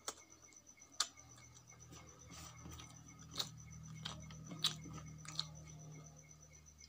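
Fingers mixing rice and chutney by hand on a stainless steel plate, with several sharp clicks of fingertips and nails against the metal.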